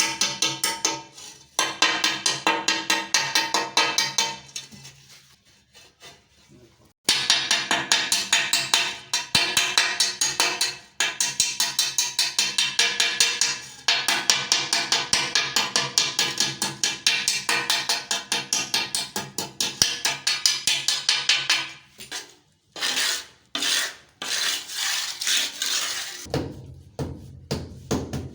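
Ceramic tile being filed by hand, with quick back-and-forth rasping strokes at about four a second. The strokes stop for a couple of seconds about five seconds in, then carry on, breaking into shorter runs near the end.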